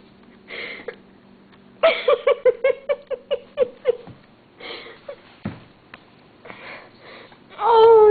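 A person giggling in quick, breathy bursts, with short rustles in between. Near the end a long, high, drawn-out vocal sound begins.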